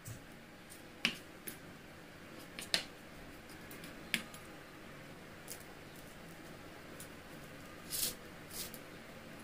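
A flat spatula pressing and spreading thick, sticky coconut-jaggery burfi mixture in a steel plate, packing it down firmly so it sets without crumbling. Scattered light taps and scrapes of the spatula against the plate, about eight in all, with a slightly longer scrape about eight seconds in.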